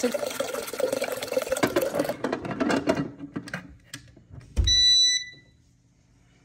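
Water poured into the stainless steel boiler of a portable sauna steam generator for about three seconds, then a few clicks as the lid goes on. A thump about four and a half seconds in, then one steady electronic beep of about half a second from the steam generator as it powers on.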